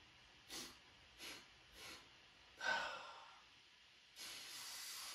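A man sniffing the air to pick up a scent: three quick sniffs, a louder, deeper sniff, then a long breath lasting about a second and a half.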